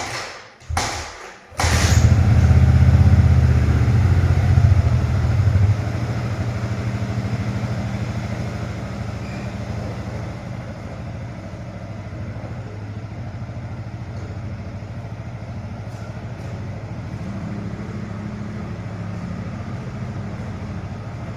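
Motorcycle engine being started: after a couple of short bursts it catches about a second and a half in and runs loud for a few seconds, then settles to a steady, quieter idle.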